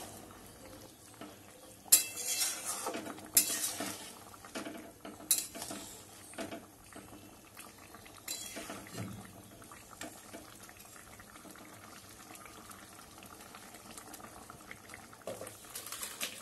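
A metal spoon stirring a thick fish curry in a metal pan. There are a few sharp clinks of the spoon against the pan about 2, 3.5, 5 and 8 seconds in, with soft scraping and sloshing between them.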